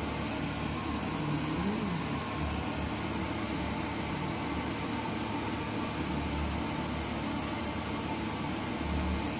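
Oven running with a steady whirring hum from its fan.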